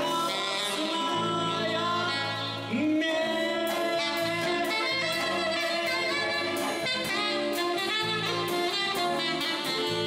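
Small jazz band playing a slow ballad live: a male voice singing and a saxophone over acoustic guitar, bass guitar and drum kit, with even cymbal ticks keeping time. About three seconds in, a note scoops up into a long held tone.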